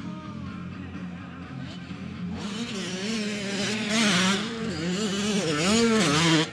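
Motocross dirt bike engine revving hard, its pitch rising and falling as the throttle is worked. It gets loud about two seconds in and cuts off suddenly at the end.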